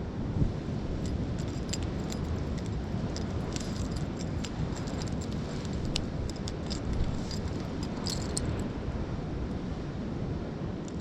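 Steady low rumble of wind and surf, with scattered light clinks and rustles close to the microphone as clothing is handled.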